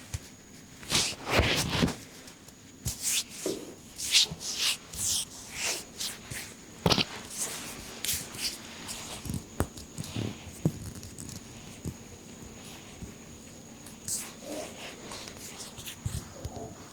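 Hands working over skin and hair during a head and back massage: irregular brushing and rubbing strokes with light slaps, and a few sharp clicks between them.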